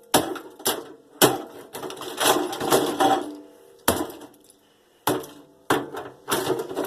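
Wiring and plastic parts being yanked out of a microwave oven: a string of sharp snaps and cracks, with crackling and scraping in between.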